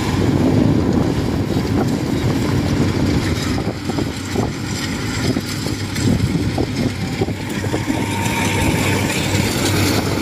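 Kubota DC-70 rice combine harvester running steadily as it cuts and threshes rice.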